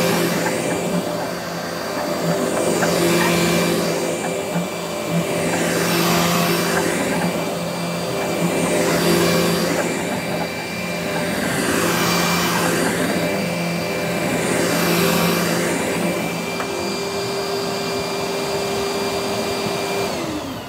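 Dirt Devil Featherlight bagless vacuum cleaner running, its sound swelling and fading about every three seconds. Near the end the motor is switched off and its pitch falls as it winds down.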